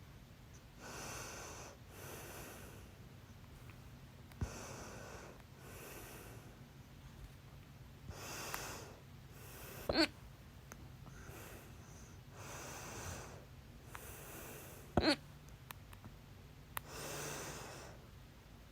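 A woman's hiccups: two sharp, sudden hiccups about ten and fifteen seconds in, with heavy breathing in and out between them.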